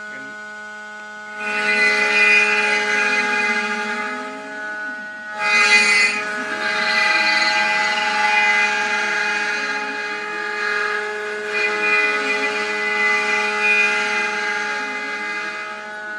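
CNC router spindle whining steadily while the job sits paused. About a second and a half in, cutting resumes: the bit chews through the wooden board with added hiss and a lower whine that rises and falls as the machine traces the circular pocket. There is a louder surge of cutting at about five and a half seconds.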